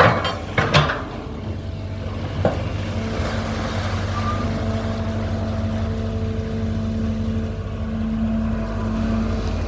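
Hydraulic excavator's diesel engine running steadily at a constant drone, with a few sharp knocks in the first second and another about two and a half seconds in.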